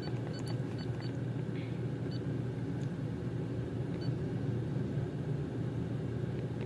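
Steady low rumble of the car running while stationary, with a few short high beeps from the handheld diagnostic scanner's keys as items are selected, mostly in the first second.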